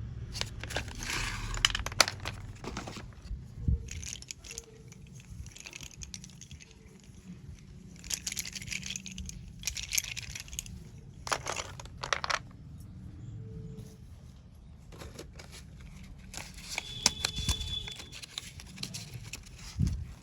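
Slate pencil packaging crinkling in several irregular bursts as it is handled, with a few sharp clicks.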